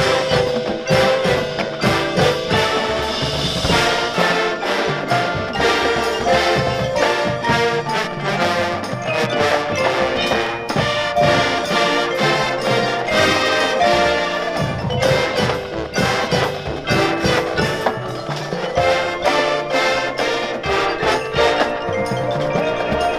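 High school marching band playing live: brass and winds with a front-ensemble pit of marimbas and other mallet percussion, and frequent drum hits.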